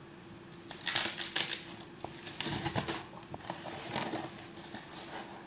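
Irregular rustling and crackling handling sounds in scattered bursts starting about a second in, over a faint steady hum.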